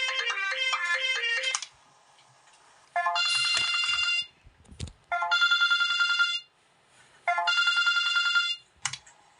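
Phone ringtones: a short electronic melody that stops about a second and a half in, then three bursts of a trilling electronic phone ring, each a little over a second long, with short pauses between them.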